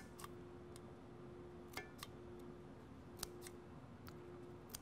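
Scissors snipping the overhanging sublimation transfer paper at the end of a taped skinny tumbler: several short, sharp snips at irregular spacing, over a faint steady hum.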